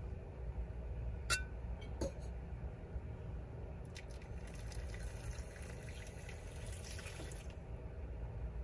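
Coffee poured in a thin stream from a glass carafe into a pour-over drip filter, being run through a second time, after a couple of light clinks of the carafe and filter. A low steady hum runs underneath.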